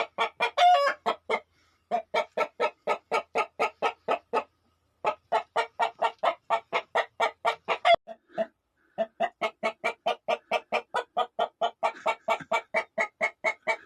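Chicken clucking in rapid, even runs of about four or five clucks a second, broken by short pauses, with a longer drawn-out call near the start and another near the end.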